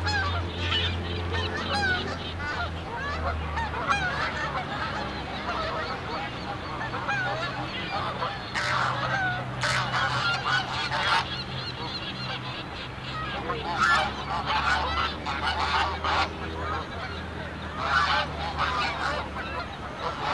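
A flock of Canada geese honking: many short overlapping calls that swell into three louder bursts in the second half, over a low steady hum.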